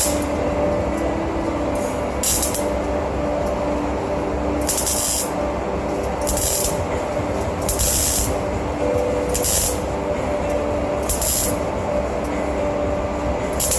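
MIG welder's arc on stainless steel sheet, crackling and hissing in about seven short bursts, roughly one every one and a half seconds, as short welds are laid.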